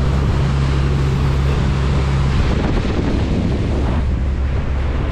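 A trawler's Cummins 6BT diesel running at cruising speed with a steady low drone, under wind buffeting the microphone and the rush of the wake and bow wave. The drone's tone shifts slightly about halfway through.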